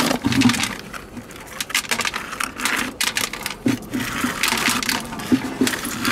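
Wooden scraper rasping in quick strokes across a rough rock, with small sea snails clicking and rattling as they fall into a plastic bucket.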